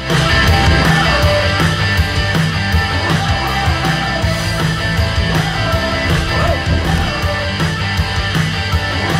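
Loud rock music with electric guitar and drums, with heavy bass, played through hi-fi speakers driven by an NS-10G Bluetooth mini stereo amplifier with its manual bass boost engaged, which the reviewer says makes the speakers sound underwater.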